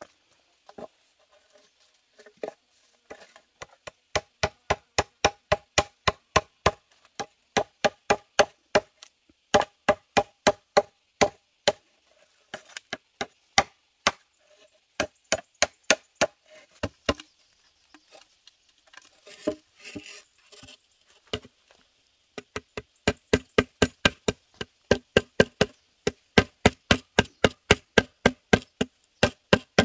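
Machete chopping into a green bamboo pole laid on a wooden log block, in quick, even strokes of about three a second, with a few seconds of sparser hits midway.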